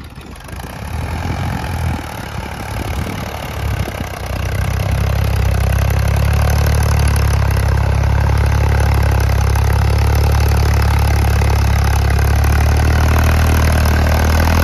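Ford 3600 tractor engine running: uneven and quieter at first, then about four seconds in it gets louder and settles into a steady run.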